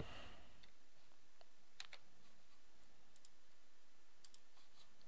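A few faint, scattered computer-mouse clicks over a low steady hiss.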